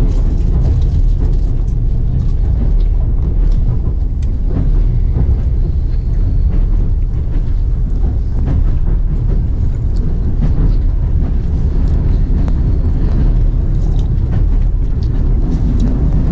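Passenger train running: a loud, steady low rumble with frequent sharp clicks and rattles throughout.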